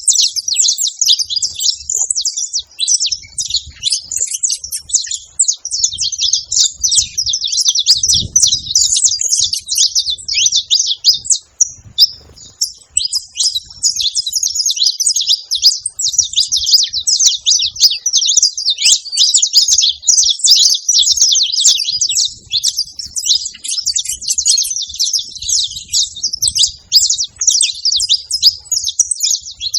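Saffron finches chirping and singing in a fast, nearly unbroken stream of high notes, with a brief pause about twelve seconds in.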